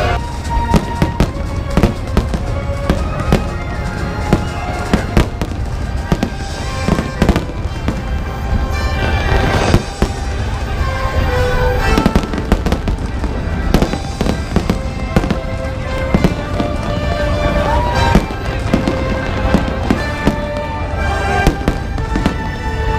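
Aerial fireworks going off in quick succession, a continuous run of bangs and crackles, with music playing along underneath.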